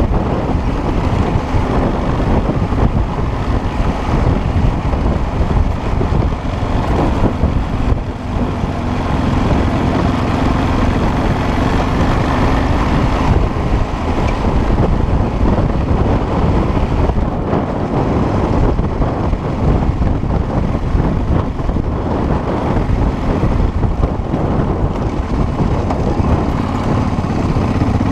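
Off-road motorcycle engine running under way, mixed with heavy wind buffeting on the microphone. A faint engine note holds steady for a few seconds near the middle.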